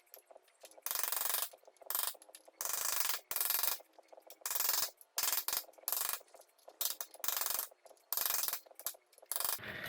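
Repeated metal-on-metal scraping strokes, roughly one a second and each well under a second long, irregularly spaced: a tool working the bent-up tabs of the front sprocket lock washer flat against the sprocket nut.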